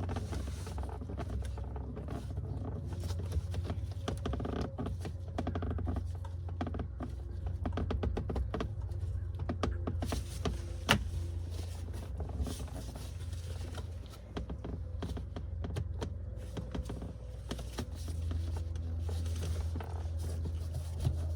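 Plastic dash trim being worked loose by hand: scattered clicks, knocks and creaks from the panel and its retaining clips, with one sharp click about eleven seconds in. A steady low hum runs underneath.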